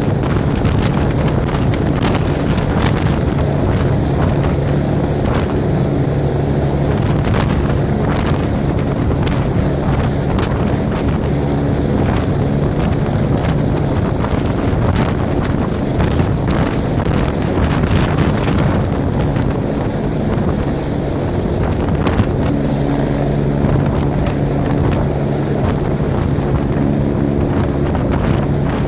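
Air force helicopter's rotor and turbine engine running loud and steady as it hovers and descends to land.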